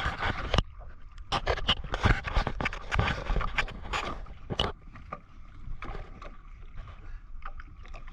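Irregular knocks and clatter aboard a small fishing boat, busiest in the first half, over a low rumble of water and wind.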